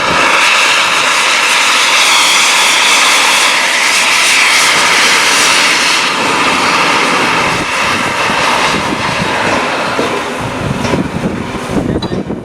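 Peppercorn A1 steam locomotive Tornado's cylinder drain cocks blowing off steam and water in a loud, steady hiss that starts suddenly. After about seven seconds it eases into rougher, lower sound. The cylinders are cold and are being warmed as she gets under way.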